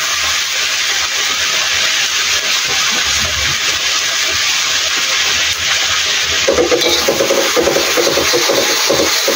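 Red chili spice paste sizzling steadily as it fries in a wok, with a metal spatula scraping and stirring it at times.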